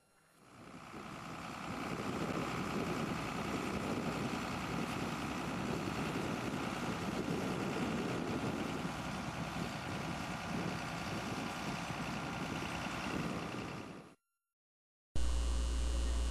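Tractor engine running steadily as it pulls a molehill destroyer drag mounted on a harrow packer bar across a field. It fades in over the first second or two and cuts off suddenly near the end, and a low steady hum follows.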